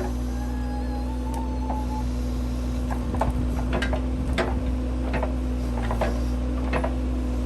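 Case 580C backhoe's diesel engine running steadily, with scattered knocks and clanks from the machine at work. A wavering high squeal sounds for about a second and a half near the start.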